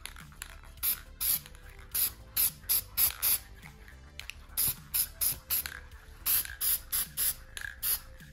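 Aerosol can of Rust-Oleum Frosted Glass spray paint hissing in a quick series of short bursts as the nozzle is pressed again and again, misting a coat onto clear plastic discs.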